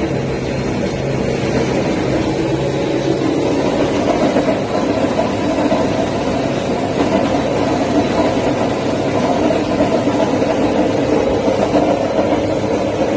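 Pellet mill running steadily, a constant machine hum, as it presses bentonite into cat-litter pellets.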